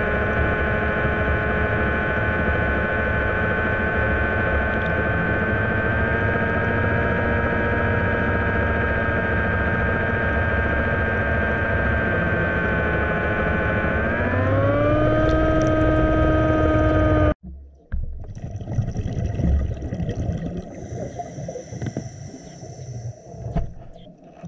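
Genesis 600 underwater scooter's motor and propeller running steadily with a whine, heard underwater. About fourteen seconds in it rises in pitch as it speeds up, then it cuts off suddenly. Afterwards there are quieter scraping and knocking sounds.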